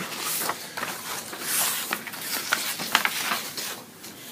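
Sheets of printer paper rustling as a stack of pages is shuffled and leafed through, with several short sharp crackles.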